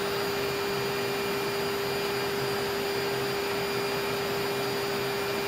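Steady airliner cockpit noise on approach: a constant rush of air and engines with an even, steady hum.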